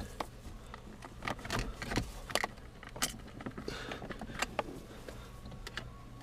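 Scattered light clicks and taps of hands and a tool working at a car's plastic shifter trim, over a faint steady low hum.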